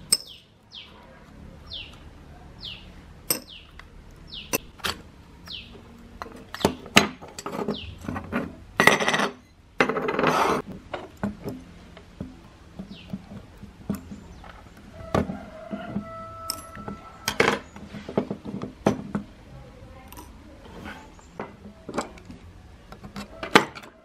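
Small metal clicks and clinks from the parts of an old round clock as its movement and dial are handled with tweezers and a screwdriver, with two longer, louder noisy sounds near the middle. Short falling bird chirps come in the background near the start.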